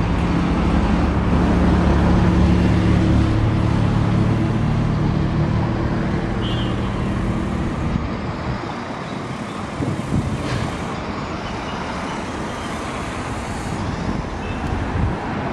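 Traffic noise with a steady low engine drone that fades out about halfway through, leaving a hiss of traffic and a few short knocks.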